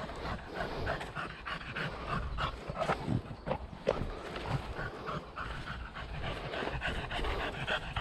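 Dog panting in a quick, even rhythm.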